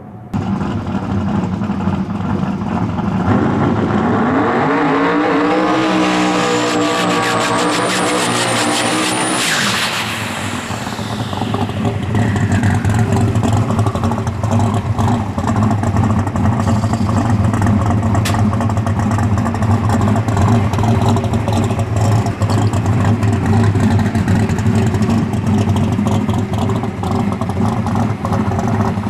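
Twin-turbo V8 drag car engine. Its revs climb for several seconds with a rising high whine, then it runs loud and steady at held revs through a smoky burnout.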